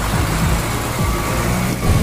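Heavy diesel truck engine running steadily with a low, uneven rumble.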